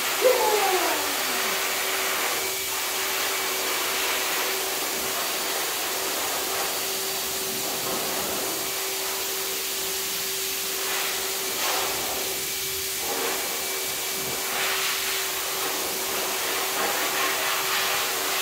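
Steady hiss of a running electric blower appliance, with a constant hum under it. A short falling pitched sound comes right at the start.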